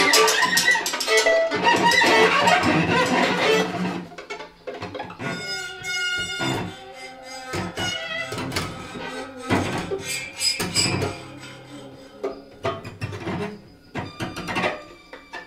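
Free-improvised music from a string ensemble of violin, viola and cello. The bowing is dense and choppy at first, then about four seconds in it thins out and grows quieter, with sparser held notes and short strokes.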